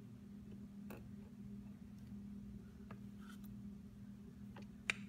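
Small metallic clicks and ticks as a C-shaped seat clip is worked into its groove on a Porsche centre-lock wheel nut, with a sharper click near the end as the clip pops into place. A steady low hum runs underneath.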